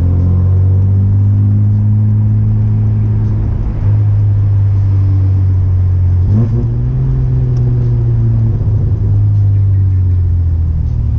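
1994 Chevrolet Omega's 3.0-litre 12-valve inline-six (C30NE), naturally aspirated, running through a 2.5-inch exhaust with two sport mufflers while the car is driven. The engine note holds steady, then rises quickly about six seconds in and settles at a higher pitch.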